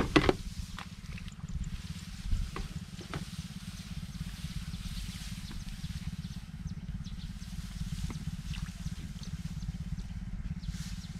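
Rice plants rustling and crackling as a person moves and walks through a paddy, with scattered small ticks and a couple of louder bumps near the start and about two seconds in, over a steady low rumble.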